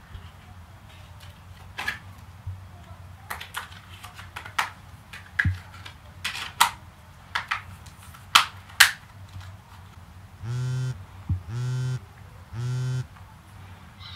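A run of sharp clicks and knocks, then a mobile phone buzzing three times in half-second buzzes about a second apart: an incoming call.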